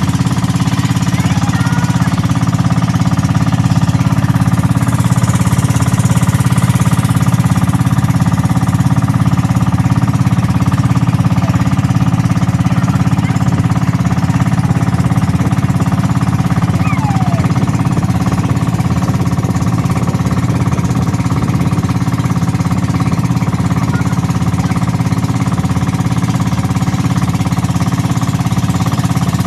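Boat engine running loud and steady at an even speed throughout.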